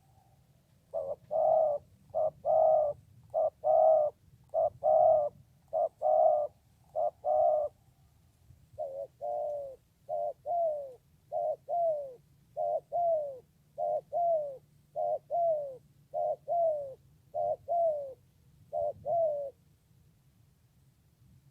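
Spotted dove cooing in a rhythmic series of short paired notes, then after a brief pause a second run of paired coos that dip in pitch at their ends, stopping shortly before the end.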